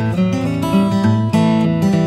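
Background music: strummed acoustic guitar playing chords with a steady rhythm.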